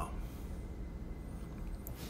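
Quiet background noise with a faint steady low hum: room tone between speech.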